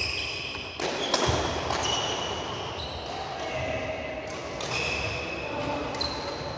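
Badminton rally on an indoor court: short high squeaks of sports shoes on the synthetic court mat and racket strikes on the shuttlecock, with the loudest hit about a second in.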